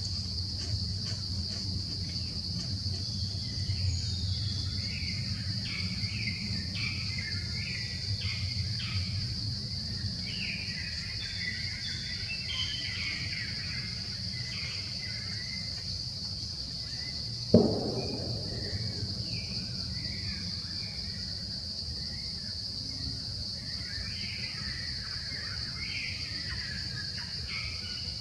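Outdoor ambience of insects droning steadily on one high pitch, with birds chirping on and off. A single sharp thump about seventeen seconds in.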